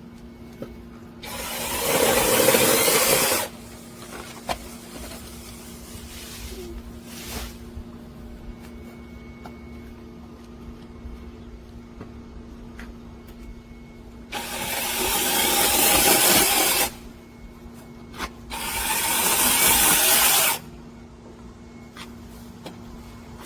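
DEHANTOOLS 12-inch brushless battery chainsaw running in three separate bursts of two to three seconds each, with a long pause after the first.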